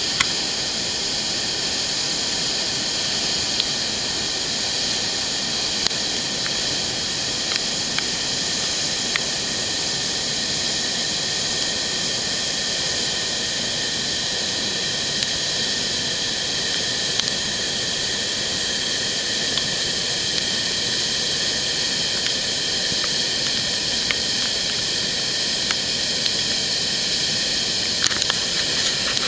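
Falls of Foyers, a 62-metre waterfall, plunging down a rock gorge into a pool: a steady, hissing rush of falling water with a few faint clicks scattered through it.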